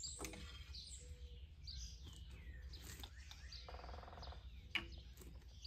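Faint bird calls: a string of short chirps and whistles, with one fuller, buzzier call about four seconds in, over a low steady background hum.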